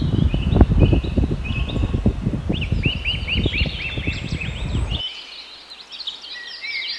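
Small birds chirping in a steady run of short, repeated arching notes. Under them, wind rumbles and crackles on the microphone until it cuts off suddenly about five seconds in.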